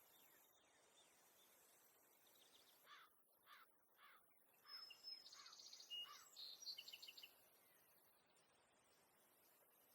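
Faint bird calls: a run of about five short falling notes, then a higher, quick trilled chatter, over a faint steady hiss.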